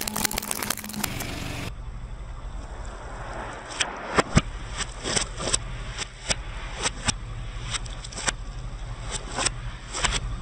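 Car tyre crushing small plastic toys with a dense crackle for about the first second and a half. Then a car engine running low under scattered sharp clicks and pops as the tyre rolls over water-filled long balloons, the loudest pop about four seconds in.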